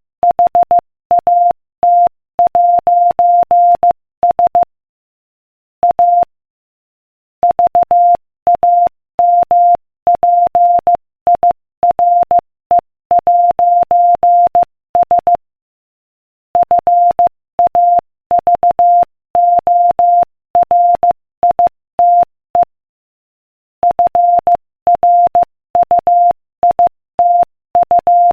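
Morse code at 15 words per minute: a single steady beep keyed on and off in short dots and longer dashes, spelling out a joke. Several pauses of about a second fall between groups of characters.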